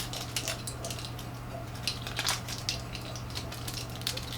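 Scattered light clicks and rustling from hitch-kit parts and packaging being handled, over a steady low electrical hum.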